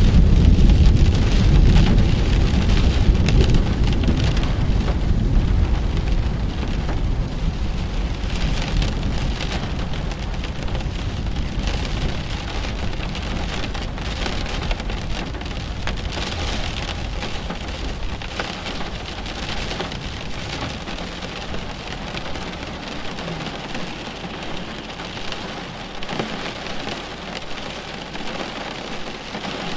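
Steady rain falling during a thunderstorm, with a long low rumble of thunder that fades away over the first half.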